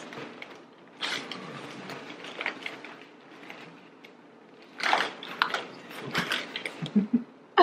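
Chip bags crinkling and rustling in a hand-held cardboard box, in a few irregular bouts: one starting about a second in, and the loudest about five seconds in.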